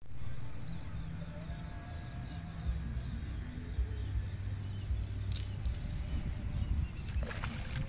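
A high chirping call from a small animal, repeated rapidly at about five notes a second, stops about four seconds in. Under it runs a steady low outdoor rumble, and a couple of faint clicks come near the end.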